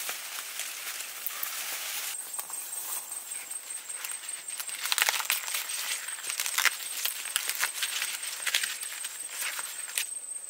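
Dry plant material rustling and crackling with scattered sharp snaps, likely corn stalks and husks being handled. A thin, steady, high insect trill starts about two seconds in.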